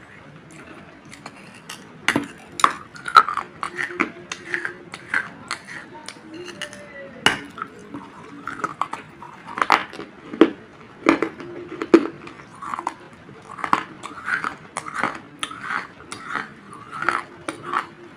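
Biting and chewing baked terracotta clay-pot shards: sharp crisp cracks as pieces snap off between the teeth, one or two a second, starting about two seconds in, with gritty chewing crunches between them.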